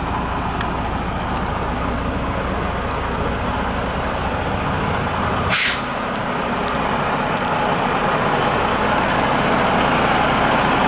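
Diesel semi truck engine running steadily, with one short burst of air-brake hiss about halfway through; the engine grows slightly louder afterwards.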